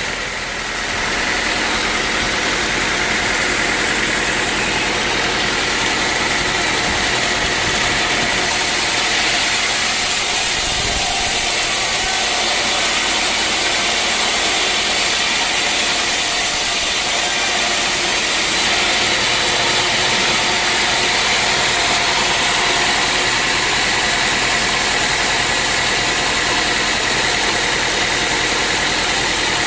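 Sawmill machinery running steadily: a constant engine-like hum under a loud hiss of noise. The high hiss grows brighter for about ten seconds in the middle, then settles back.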